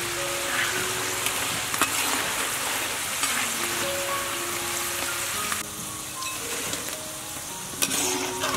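Taro sticks deep-frying in hot oil: a dense, steady sizzle that drops sharply a little past halfway, with a few light clicks.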